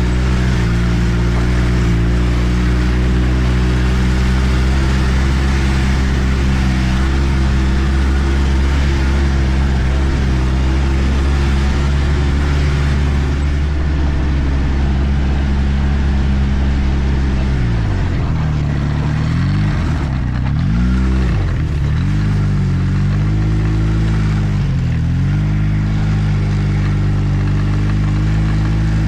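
2013 Arctic Cat F1100 turbo snowmobile engine running steadily under way. From about two-thirds of the way through, the revs drop and climb back several times as the throttle is eased off and reapplied.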